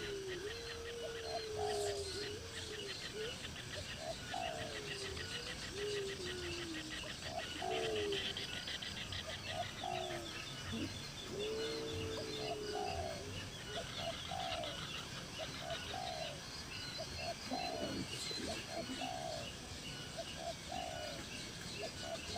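Birds calling: a short note repeated about once a second, with lower drawn-out gliding calls in the first half, over a steady high rapid chirring.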